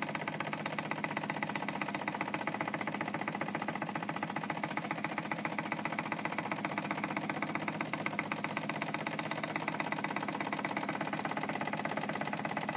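Jensen Model 35 toy steam engine running steadily, giving a fast, even chuffing beat.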